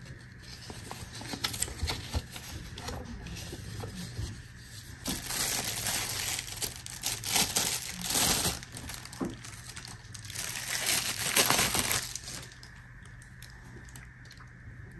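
A thin clear plastic bag crinkling and rustling as it is handled and pulled off a pair of sunglasses. It is loudest from about five to twelve seconds in, with lighter handling rustles and clicks before that.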